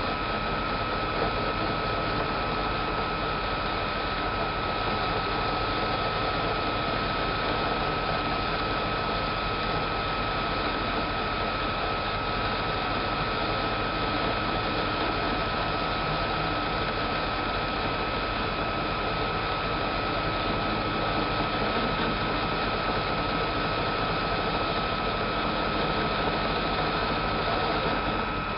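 Metal lathe running while a turning tool cuts the register surface of a chuck backing plate: a steady mechanical run with a high, steady whine on top that does not let up.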